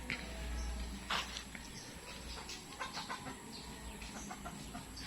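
Backyard chickens clucking faintly, with scattered short calls.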